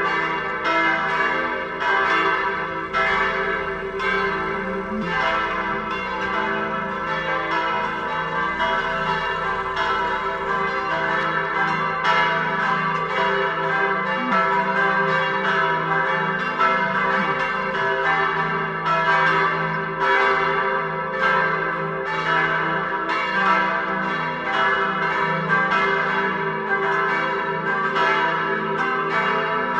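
Full peal of four church bells tuned e', g', a' and c'' swinging together. Their strokes overlap at about two a second over a continuous blend of ringing tones.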